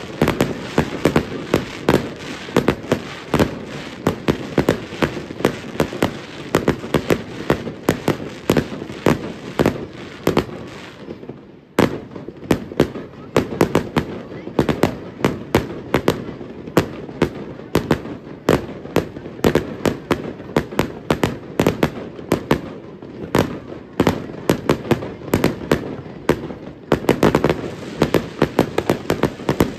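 Professional fireworks display: a dense, continuous barrage of aerial shells and cakes, with sharp bangs and reports coming several a second and crackling between them. A brief lull about twelve seconds in, then the barrage picks up again.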